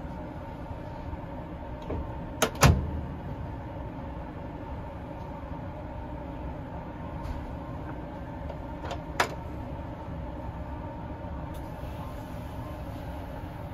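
Thumb-turn lock on a train sleeper-compartment door clicking. Two sharp clicks come about two and a half seconds in as it is turned, and another pair about nine seconds in as it is turned back, over the steady rumble and hum of the moving train.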